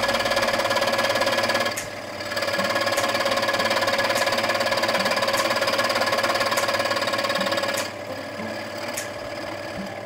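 Scroll saw running, its blade cutting through a stack of glued polycarbonate sheets with a steady buzz. The sound dips briefly about two seconds in and gets quieter near the end.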